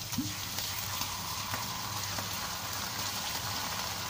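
Steady sizzle of onions, chillies and dried shrimp frying in oil in a wok, with a faint low hum underneath.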